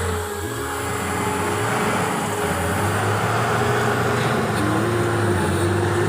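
Motor vehicle engines running steadily with road traffic noise, a low continuous hum.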